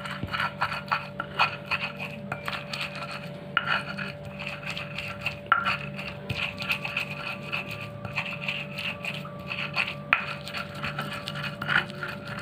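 Pestle grinding a spice paste against a stone mortar (cobek): a quick run of gritty rubbing scrapes with a few harder knocks of stone on stone. The paste is being ground until smooth.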